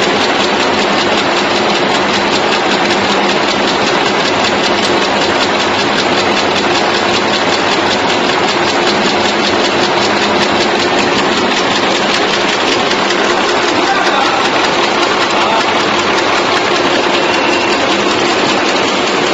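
Automatic chewing gum making machinery running: a steady, dense mechanical clatter of rapid ticks over a steady motor hum.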